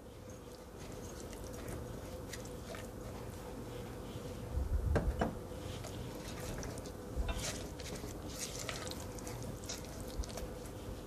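Wooden spoon stirring brown sugar into pumpkin puree in a glass mixing bowl: soft wet squishing and scraping with light clicks of the spoon on the glass and a few low knocks about five seconds in and again past seven seconds. A faint steady hum sits underneath.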